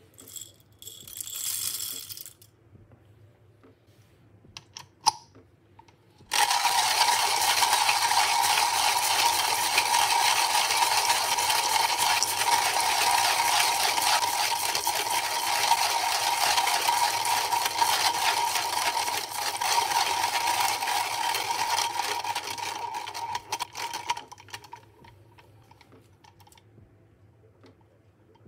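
Coffee beans being crushed in a hand coffee grinder: a dense, crackling grind that starts about six seconds in, runs for about eighteen seconds, then stops. A short rattle comes near the start, and a few clicks come just before the grinding.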